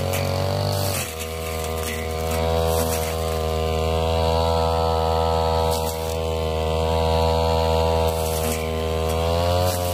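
Ryu backpack brush cutter's engine running at high revs while cutting tall, thick grass, its pitch dipping and climbing back about a second in and again near the end.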